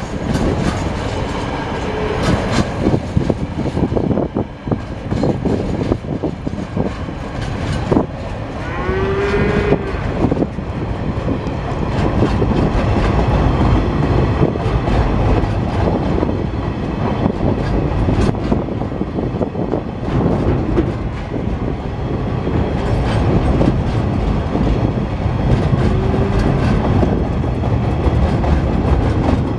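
Freight train of container flat wagons loaded with empty bauxite containers rolling past: a steady rumble of steel wheels on the rails, with repeated clicks and knocks as the wheels pass over the track.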